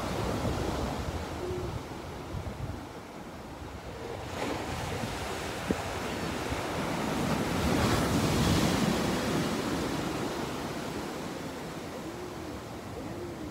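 Small ocean waves breaking and washing up onto a sandy beach, the wash swelling about eight seconds in.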